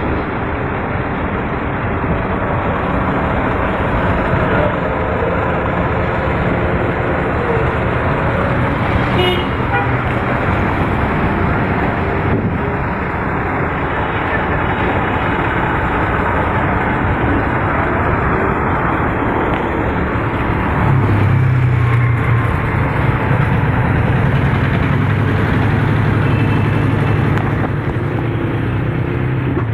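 Steady street traffic and engine noise, with a short vehicle horn toot about nine seconds in; from about twenty seconds in, a deeper steady engine hum grows louder.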